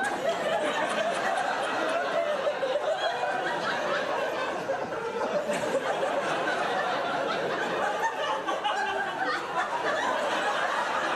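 A theatre audience laughing together, a continuous mass of many voices that holds steady throughout.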